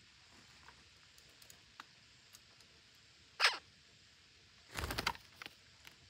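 Parakeets moving about a dead tree stump at their nest hole: light clicks and scratches of beaks and claws on the rotten wood, with a short scraping sweep about three and a half seconds in. Near the end comes a louder brief scuffle as one bird climbs up the stump.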